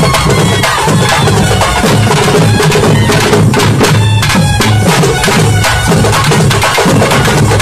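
Loud live Tamil karakattam folk music: thavil barrel drums beaten in a fast, dense rhythm under a reedy nadaswaram melody.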